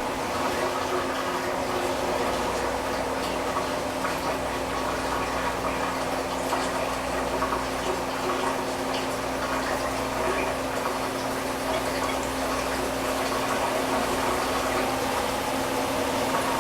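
Front-load washing machine running its spin cycle: a steady hum with one even tone under a rushing, watery noise, holding level throughout.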